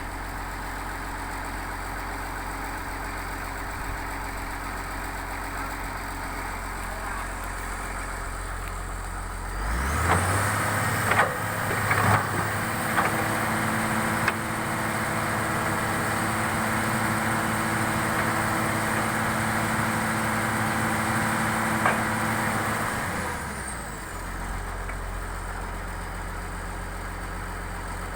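Excavator's diesel engine idling, then revving up under hydraulic load about a third of the way in, with a high whine and several sharp metal clanks. It settles back to idle near the end.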